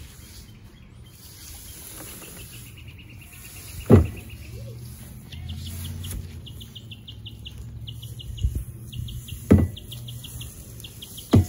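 A metal shovel knocks sharply three times against a plastic wheelie bin and the ground while cut grass is scooped and tipped in. A bird trills in quick repeated runs of high chirps, over a steady low rumble.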